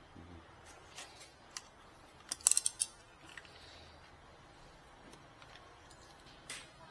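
Small plastic clicks and ticks from handling ink bottles and the refill reservoir: a quick run of several sharp clicks about two and a half seconds in, and another click near the end.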